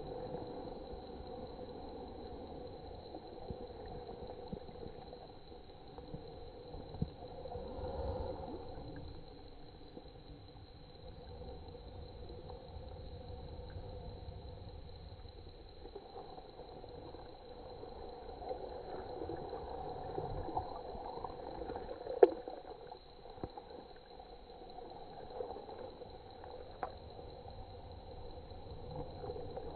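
Quiet gurgling and sloshing of water in an ice-fishing hole as a walleye is held head-down in it by the tail, with faint irregular clicks and one sharp click about 22 seconds in.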